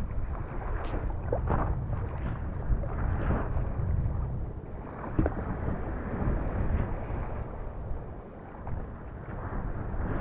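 Wind buffeting the microphone, with water splashing and slapping against an inflatable stand-up paddleboard as it is paddled through choppy sea. The splashes come in irregular swells every second or two over a steady low rumble.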